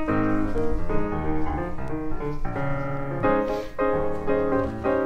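Background piano music, a run of played notes.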